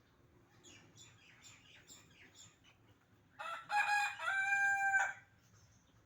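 Rooster crowing once, a loud call of under two seconds starting about three and a half seconds in. A few faint short sounds come before it.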